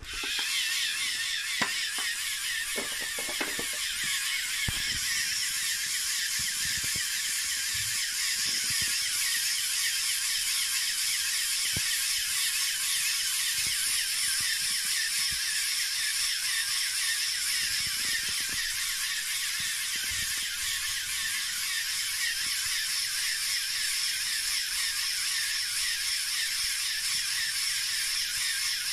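LEGO Technic pneumatic air compressor, four EV3 large motors driving eight large pneumatic pumps, switched on suddenly and then running steadily while it pumps air into a balloon. A few knocks sound in the first seconds.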